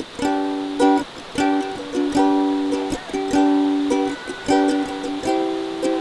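Background music: strummed ukulele chords in a steady rhythm, with no singing.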